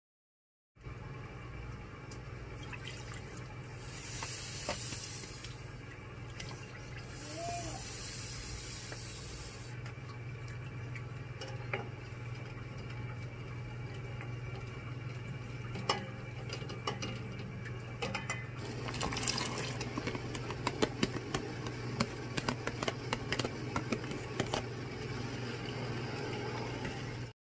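A ladle stirring vinegar in a stainless steel pot as sugar and salt are dissolved into it: liquid swishing, with two spells of hiss in the first third and the ladle clicking against the pot. Toward the end the clicks and splashes grow dense as sliced carrots go into the brine. A steady low hum runs underneath.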